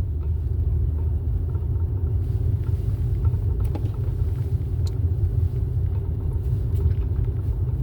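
Steady low rumble with a fainter hum above it and a few faint ticks, with no speech.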